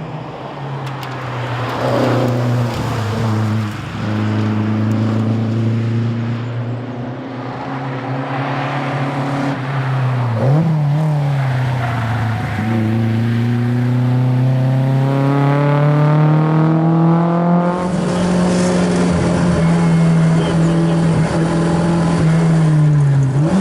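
Fiat 131 rally car's engine running under load, its pitch rising as it revs through the gears and dropping sharply at each change, with a sharp drop about ten seconds in, a climb to a steady high pitch, and a drop again at the end.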